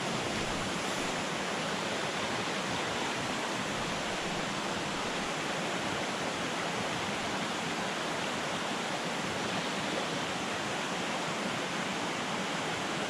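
Steady rush of a rocky mountain trout stream running over boulders and riffles.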